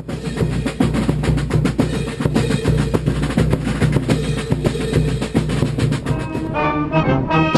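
A U.S. Marine Corps marching band's drum line playing a march cadence on snare drums, bass drums and cymbals, with brass coming in near the end.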